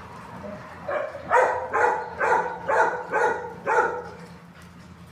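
A dog barking in a quick run of about seven barks, roughly two a second, starting about a second in and stopping near four seconds.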